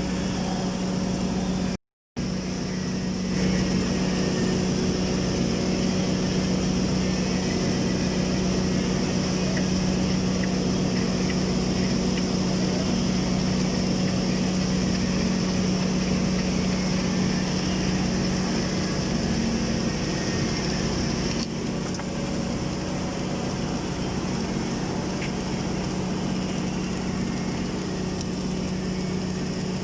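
Automatic girth welding machine running during submerged-arc welding of a tank seam: a steady low hum with a constant hiss. The sound breaks off for a moment about two seconds in, then carries on at a slightly changed level.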